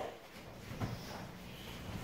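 A boxer dog moving about on a leather couch: a few soft thumps and rustles as it climbs up and settles with a plush toy.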